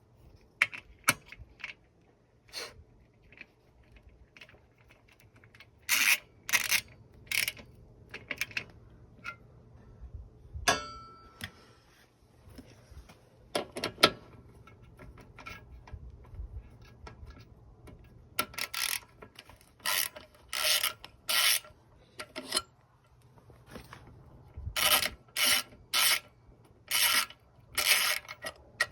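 Ratchet socket wrench clicking in short back-and-forth strokes, in several runs of quick bursts with pauses between, as bolts are worked on a motorcycle.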